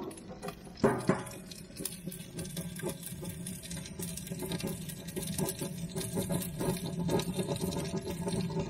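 Barbecue grill lid knocking shut, with a second knock about a second in, followed by dense, fast crackling and ticking inside the closed grill as it heats, over a steady low rush.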